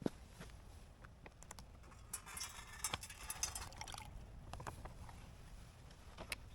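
Camp cooking gear and food packaging being handled: scattered small clicks and knocks, with a stretch of crinkling rustle about two seconds in.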